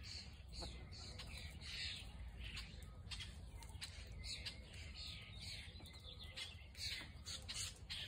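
Chickens calling: a run of short, high chirps and squawks, several a second, over a low steady rumble.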